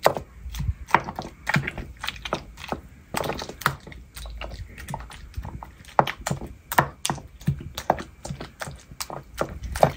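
Stone pestle (tejolote) mashing avocado into roasted tomato and serrano chile salsa in a volcanic-stone molcajete: irregular soft knocks and squelching thunks, a few each second.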